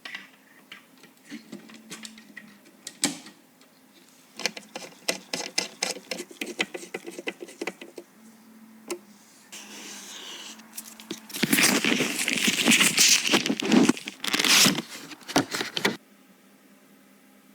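Computer parts being handled during a PC build: scattered clicks and light taps, then a few seconds of loud rustling and crackling about two-thirds of the way in that stops suddenly.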